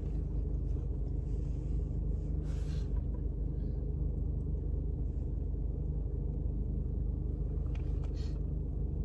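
Steady low rumble of a car's engine and cabin, heard from inside the car. Two brief rustles, about two and a half seconds in and again near the end.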